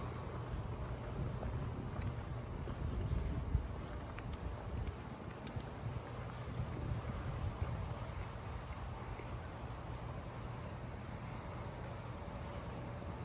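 Crickets chirping in an even, high-pitched pulse of about two or three chirps a second, over a low rumble.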